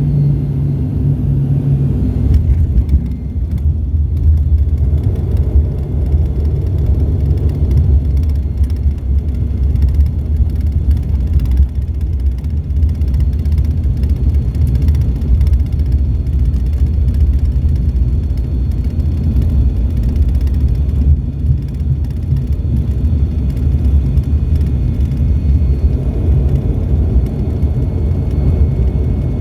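Cabin noise of an ATR 72-600 turboprop airliner: a loud, steady low rumble from the engines and airframe, with a steady propeller hum that stops about two seconds in. Faint thin whines sit high above the rumble.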